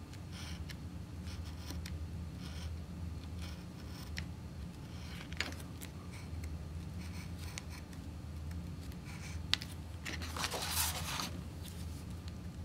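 Craft knife blade scratching and clicking in short strokes as it cuts through cardstock on a cutting mat. Near the end the sheet of cardstock rustles for about a second as it slides across the mat. A steady low hum runs underneath.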